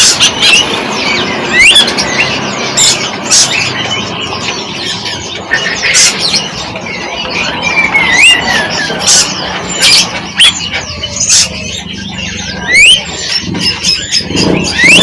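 Several birds calling at once: many short rising whistles over a dense chatter, broken every second or so by sharp, shrill squawks.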